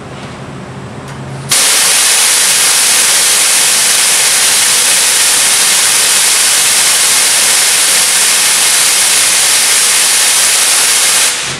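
Nitrous oxide at about 1,000 PSI discharging into the open air through a Nitrous Express Lightning 250 solenoid on a timed flow test: a loud, steady hiss that starts abruptly about a second and a half in and cuts off sharply about ten seconds later, when the timer closes the solenoid.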